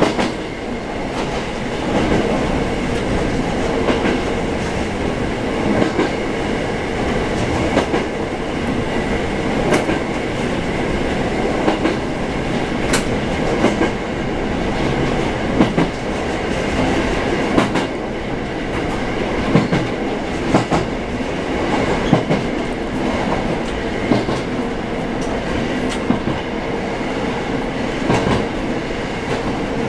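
Mizushima Rinkai Railway diesel railcar running along the track, heard from inside the cab: continuous rolling and engine noise with a steady hum and irregular sharp clicks of the wheels over rail joints, and wind rushing in through the open windows.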